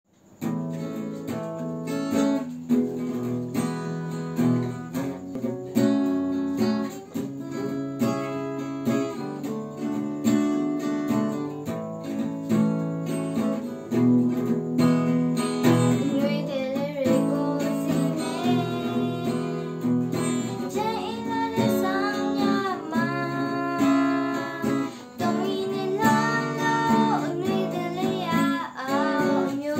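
Song intro played on acoustic guitar, strummed, starting about half a second in. About halfway through, a wavering melody line comes in above it.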